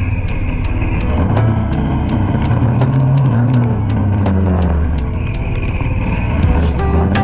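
Kawasaki Dominar 400's single-cylinder engine running on the road, its revs rising and falling through the gears. Background music with a steady beat plays over it.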